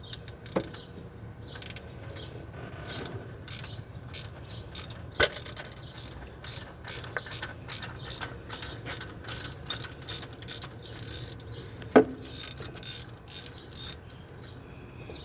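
Homemade valve spring compressor being released after the valve keepers are slid in: a long run of irregular metallic clicks, with a few sharper knocks, the loudest one late on.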